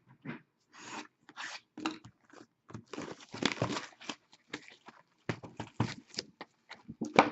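Plastic wrap and cardboard packaging being torn and crinkled open by hand in short, irregular rips and rustles: a sealed box of trading cards being unwrapped.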